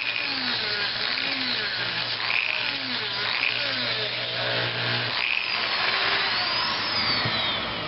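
A small power tool cutting into the soft epoxy potting of a golf-cart CDI unit, a rough, grinding noise whose pitch wavers as the cut bites. A steady low hum under it stops about five seconds in.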